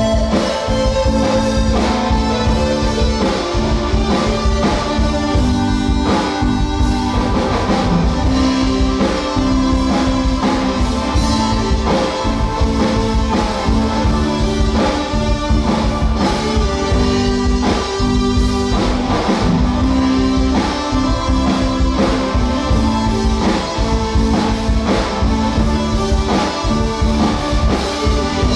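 Live rock band playing on electric bass, electric guitar, keyboard and drum kit, loud and steady with a regular drum beat.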